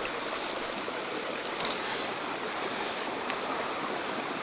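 Steady rush of running stream water, with a couple of faint light clicks.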